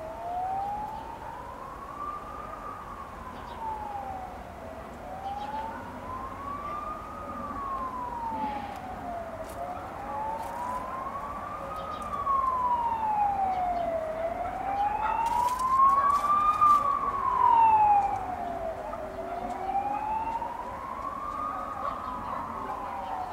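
A siren wailing, its pitch sliding slowly up and down about once every four to five seconds, five times over, and growing louder for a few seconds in the middle.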